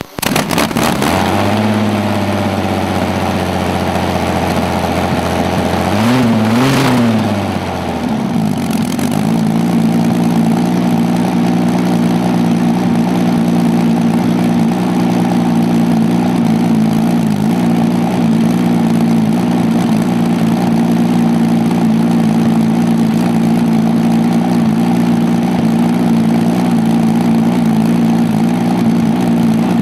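Rolls-Royce Meteor V12 petrol tank engine starting up and running. About six to seven seconds in it revs briefly up and back down, then settles into a steady idle at a slightly higher speed.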